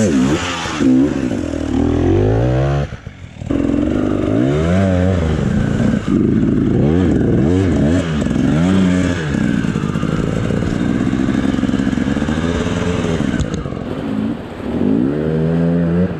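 KTM and Husqvarna enduro motorcycle engines revving up and down again and again, blipped hard under load. About three seconds in there is a short break, and the revving carries on in a river crossing over the noise of rushing water.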